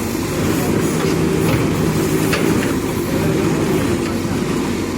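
Diesel engine of a JCB backhoe loader running steadily under work, with a few light knocks from the machine as it loads mud.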